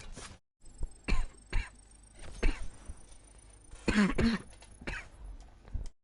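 A person coughing hard in a string of about half a dozen separate coughs with short gaps between them, the loudest a pitched double cough about four seconds in.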